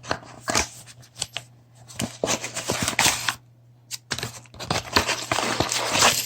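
Rummaging through a PC case's box and accessory packaging: crinkling plastic and cardboard rustling in two longer stretches, with scattered clicks and knocks of small parts being handled.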